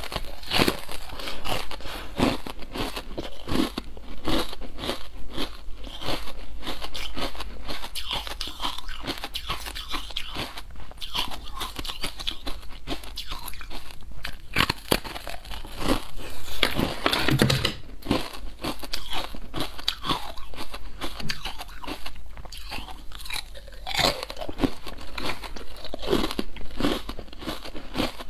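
A person biting and chewing brittle, crunchy food close to a clip-on microphone: dense, irregular crisp crunches and crackles, with a louder run of crunching a little past the middle.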